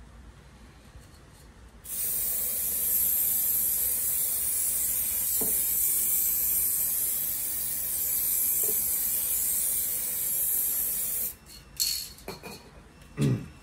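Aerosol can of hydro-dip activator spraying steadily for about nine seconds onto the printed film floating on the water, activating the film for the dip. The spray starts and stops abruptly, and a few short knocks follow near the end.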